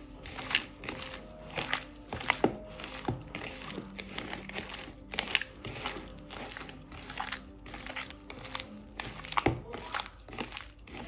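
Soft background music under kitchen handling noises: crinkling, rustling and sharp clicks as the tart-dough ingredients are handled and mixed.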